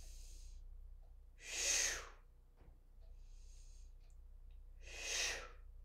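A woman breathing hard in rhythm with one-arm dumbbell rows: two loud, forceful exhales, one about two seconds in and one near the end, each on the lift, with softer inhales between as the weight is lowered.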